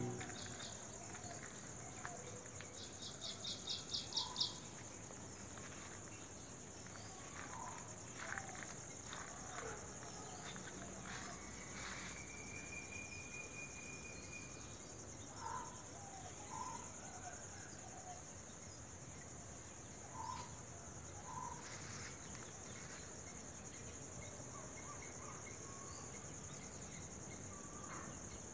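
Faint outdoor ambience: insects keep up a steady high-pitched drone while birds give scattered short chirps, a quick run of rapid chirps about three seconds in, and a thin held whistle around twelve seconds in.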